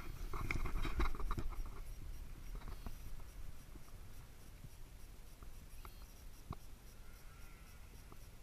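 Scratchy rustling and crackling close to the microphone, loudest in the first two seconds, then thinning to faint scattered clicks over a low rumble.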